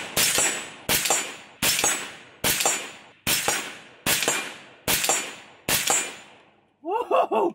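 AR-15 rifle fired semi-automatically: eight shots at a steady pace of a little more than one a second, each followed by a trailing echo.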